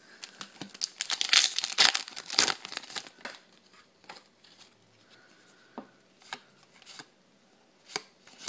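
Foil booster pack wrapper being torn open and crinkled, a dense crackling run for about three seconds. Then a few scattered soft clicks and rustles as the trading cards inside are handled.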